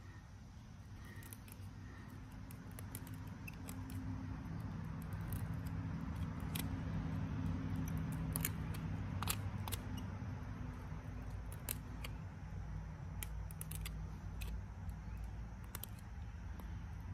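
Knife blade carving and scraping into a dry, woody conch bracket fungus (Fomitopsis ochracea) hearth, with irregular crisp clicks and scrapes as the notch for a hand-drill fire is cut. A low steady drone sits underneath and grows louder over the first few seconds.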